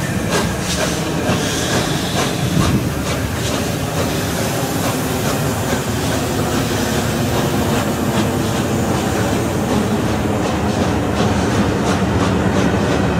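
Passenger coaches of a steam-hauled express rushing past at speed, wheels clicking rhythmically over the rail joints, with the hiss and exhaust beats of the A1 Pacific locomotive 60163 Tornado fading as it draws away in the first few seconds.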